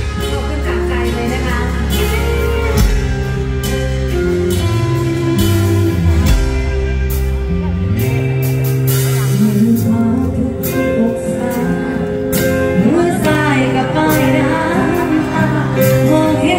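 Live luk thung band playing through a large stage sound system: drum kit beat, bass line and electric guitar, with a voice singing over it in the second half.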